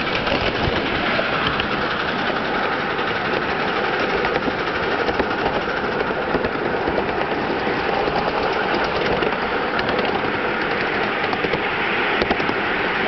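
Miniature ride-on steam train, a 1961 English-built Britannia locomotive hauling passenger cars, running steadily along its track: a continuous clatter of wheels and running gear heard from on board.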